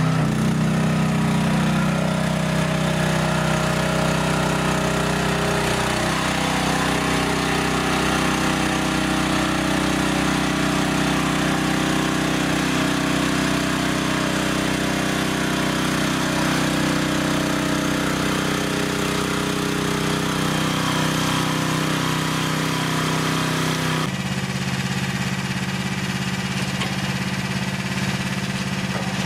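Engine of a Jansen RD-500 tracked mini dumper with hydrostatic drive, running steadily under load as the fully loaded machine climbs a steep slope; its note shifts about six seconds in. Near the end it cuts abruptly to the engine idling.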